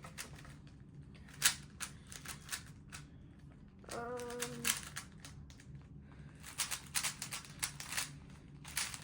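3x3 Rubik's cube being turned fast during a speed-solve: runs of quick plastic clicks as the layers snap round, with a short pause and a brief hummed note about four seconds in.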